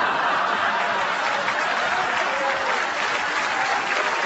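Studio audience applauding and laughing.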